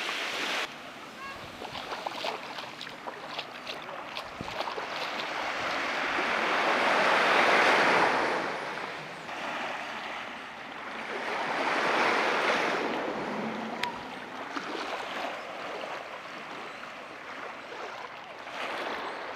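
Surf washing onto a beach: a steady hiss of water with two waves swelling and breaking, the louder about a third of the way in and the second just past halfway.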